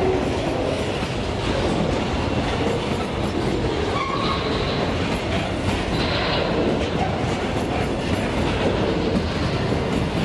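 Freight train of grain hopper wagons rolling past close by: a steady, loud rumble and clatter of steel wheels on the rails, with a few faint high squeals from the wheels near the middle.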